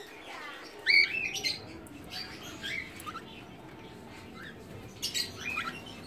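Cockatiels calling: short arching chirps, the loudest cluster about a second in and another about five seconds in.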